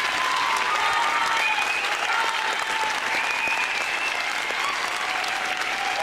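A crowd applauding steadily, with faint cheering voices over the clapping.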